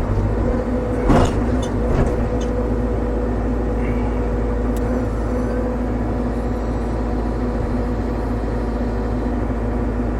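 Excavator engine running steadily under load while the bucket is worked, with a couple of short knocks about one and two seconds in.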